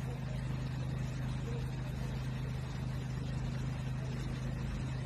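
A steady low mechanical hum, like a running motor, over faint background noise.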